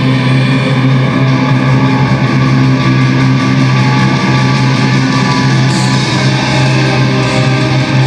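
Free-skate program music playing loud: a dense instrumental passage held over a sustained low note.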